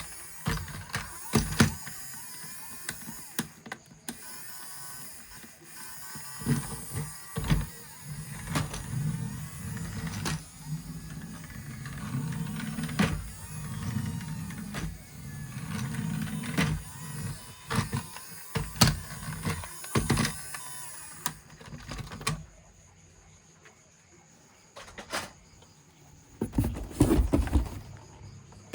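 Plastic toy vehicles being handled, with many sharp clicks and knocks and a small motor whirring at times; it goes quieter for the last few seconds apart from a cluster of knocks near the end.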